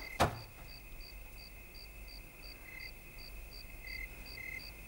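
Crickets chirping steadily at about three chirps a second over a faint high insect trill, with one sharp click near the start.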